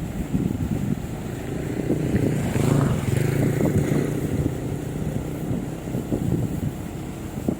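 Combine harvester engine running steadily, getting louder for a couple of seconds around the middle.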